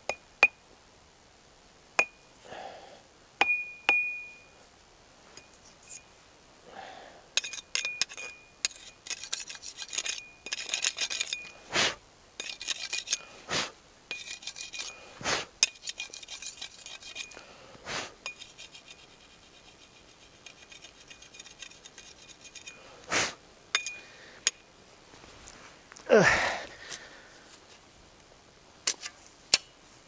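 Metal hand tools clinking, rattling and knocking as they are gathered up and put away, with a run of rapid clicking in the middle and a few louder knocks. Near the end there is one loud, short breathy rush.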